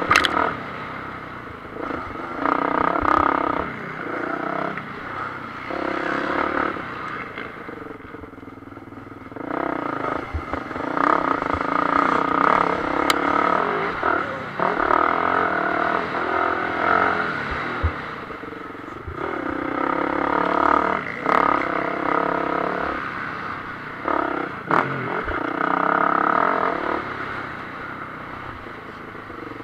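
Motocross bike engine revving hard and easing off again and again as the throttle is opened and closed through the track's straights and corners. Scattered knocks and rattles from the bike over the rough dirt.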